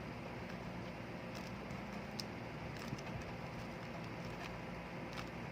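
Faint plastic clicks of a Rubik's cube's layers being turned through an algorithm, a few soft scattered clicks over a steady low hum.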